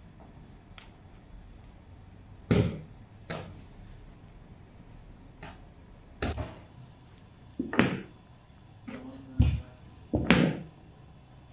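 Heavy thumps on a floured bakery work table as dough is handled and rolled with a wooden rolling pin: about six loud knocks at uneven intervals, with a few lighter taps between them.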